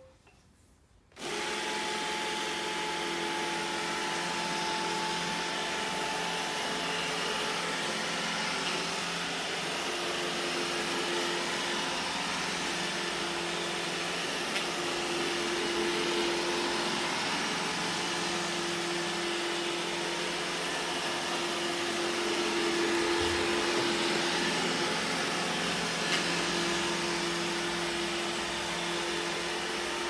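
iRobot Roomba e5 robot vacuum starting its cleaning run: after a brief quiet moment, its motors and brushes spin up about a second in and run as a steady whir with a hum.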